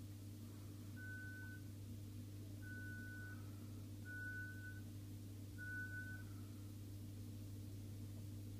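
Four short, high-pitched beeps, evenly spaced about a second and a half apart, over a steady low hum.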